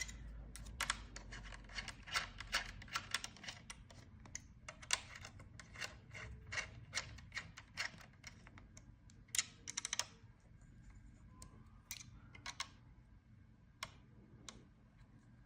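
Craftsman V20 cordless 16-gauge finish nailer dry-firing with no nails loaded: a series of sharp clicks, about two a second at first, then sparser. The gun is cycling normally again after a cleared jam.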